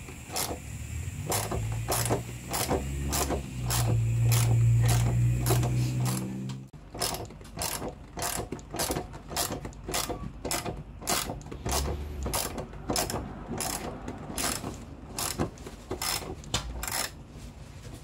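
Ratchet wrench clicking at about two clicks a second while cranking up a jack that presses against a tire to break its bead off the rim. Under the clicks a low steady hum runs for the first six seconds or so, then cuts off sharply about seven seconds in.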